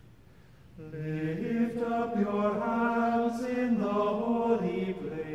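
Unaccompanied choir singing plainchant-style chant in sustained notes that move in steps, beginning about a second in after a moment of quiet.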